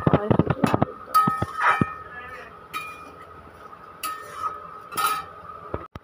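Metal spatula stirring and scraping in a steel kadai of thick potato curry: quick clinks and scrapes in the first second, then a few separate knocks against the pan's side, over a faint steady high tone.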